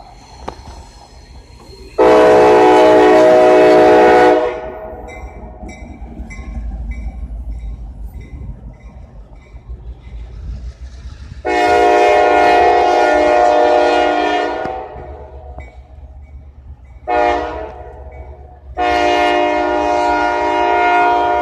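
CSX freight locomotive's air horn, a chord of several notes, sounding the grade-crossing signal: two long blasts, one short, then a final long one that runs past the end. A low train rumble continues underneath.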